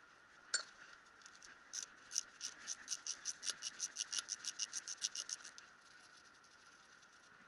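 Ratchet wrench clicking quickly and evenly, about six clicks a second for several seconds, as a bolt on a Jaguar XJ rear differential housing is undone; a single click comes first.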